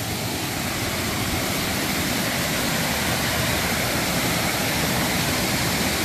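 Small waterfall cascading over rocks into a pool, a steady rush of water that grows slightly louder toward the end.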